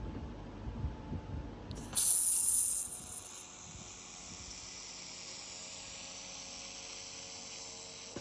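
2000 W handheld laser welding machine welding a corner joint in 4 mm mild steel without filler wire. A loud hiss starts suddenly about two seconds in and eases after a second or so into a steady hiss, which cuts off abruptly at the end.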